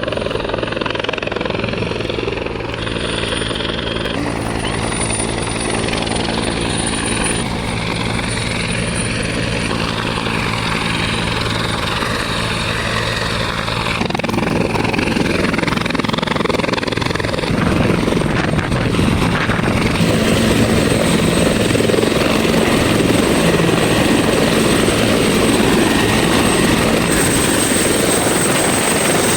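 Rescue helicopter running close by: a steady engine and rotor drone that turns into a louder, rougher rush of rotor wash about halfway through.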